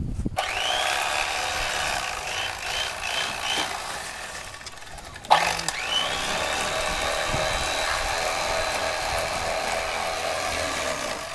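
Electric fillet knife motor whining up to speed and running while filleting sheephead, twice: a short run of about three seconds, then a second start about five seconds in that runs on steadily.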